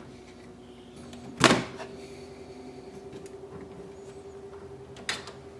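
A plastic 3D-printer toolhead being handled while its PTFE tube is pulled out: two sharp clicks, the louder one about a second and a half in and a weaker one near the end.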